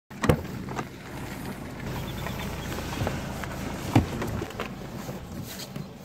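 A Toyota Corolla's boot lid being opened by its release handle: a sharp latch click near the start, then handling knocks, the loudest about four seconds in, over a steady low rumble.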